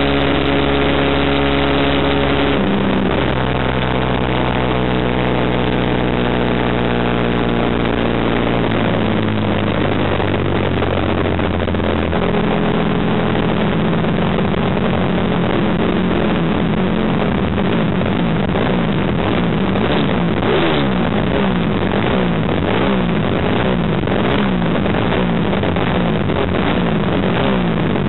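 Racing motorcycle engine on the bike carrying the camera, running at a steady speed, then dropping in pitch in a few steps as it slows. From about halfway it runs at low revs with repeated small rises and falls in pitch, like throttle blips.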